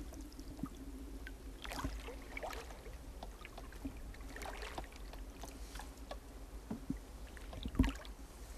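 Water splashing and lapping against an open canoe on the ocean, with scattered small splashes and light knocks on the hull. A sharper thump near the end is the loudest sound.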